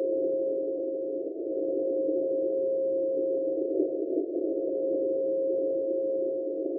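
Morse code (CW) signal on 7999 kHz heard through a shortwave receiver: a steady beat tone held almost unbroken, with short breaks a little over a second in and about four seconds in. It sits in a narrow band of filtered static hiss.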